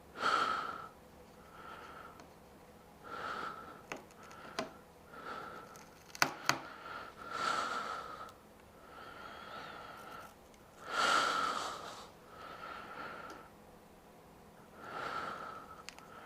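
A person's breathing close to the microphone, a slight whistle on each breath, a breath about every two seconds. Two sharp clicks of handling a little past six seconds in.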